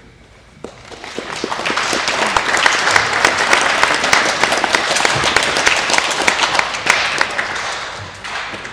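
Audience applauding with many hands clapping. It starts about a second in, swells to full strength, and dies away near the end.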